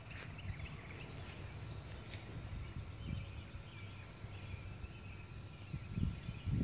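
Quiet outdoor ambience: a steady low rumble of wind or handling on the microphone, faint bird twitter in the middle, and a few soft thumps near the end.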